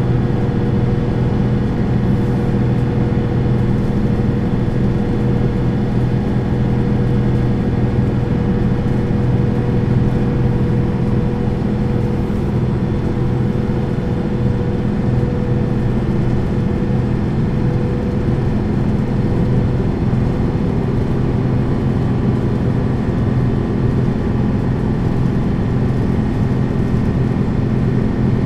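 Neoplan N 4411 Centroliner midibus's diesel engine and Voith automatic drivetrain running at a steady pitch, heard on board during a ride, with road noise beneath. A higher tone in the hum fades out about two-thirds of the way through.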